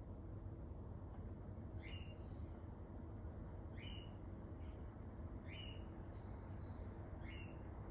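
A pet bird in the apartment upstairs, heard through the ceiling, calling four times at about two-second intervals, each call short and much the same as the last, over a steady low room hum.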